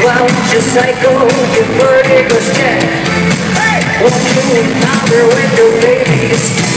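Live pop concert music with a sung lead vocal over the band, loud as heard from within an arena crowd.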